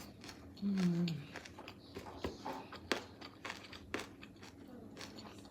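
A person chewing close to the microphone: a short falling 'mm' hum about a second in, then scattered sharp clicks and crunches of biting and chewing.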